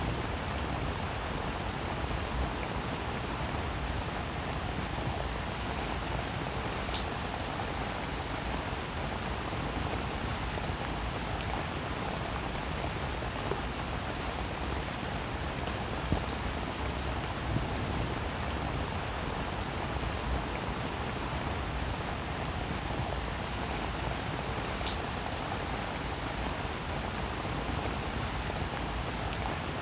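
A steady, even hiss like rain, with a few faint ticks.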